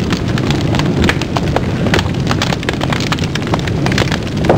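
Vinegar fizzing on baking powder in a homemade paper-cup volcano: a dense, steady crackle of tiny pops over a low rumble.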